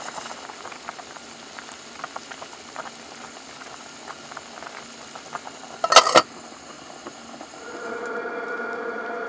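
Liquid bubbling at a boil with a steady crackle of small pops, broken about six seconds in by one brief, sharp metallic-sounding clatter. Near the end a steady hum with a few held tones takes over.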